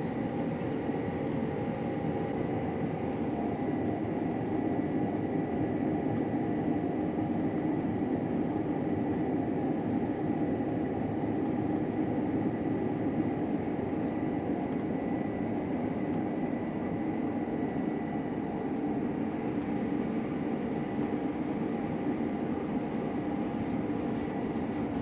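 Farm harvesting machine running steadily, heard from inside its cab: a constant drone with a thin, steady high whine above it.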